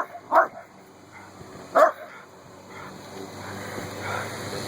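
Miniature schnauzer barking: three sharp barks in the first two seconds. A lawn mower engine runs steadily underneath and grows louder in the second half.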